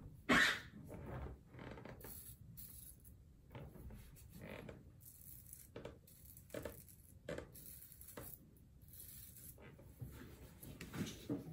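Above the Tie Atlas H2 safety razor scraping through lathered beard stubble in a series of short, irregular strokes, with one sharper, louder scrape about a third of a second in.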